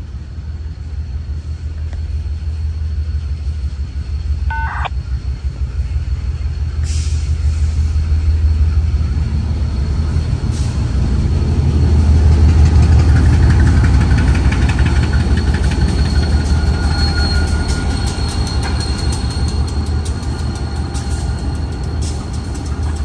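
A consist of GE and EMD diesel-electric freight locomotives, led by a GE C40-8, passing close by under power with a deep engine rumble. The rumble builds to its loudest about twelve seconds in as the lead unit passes and stays strong as the trailing units follow.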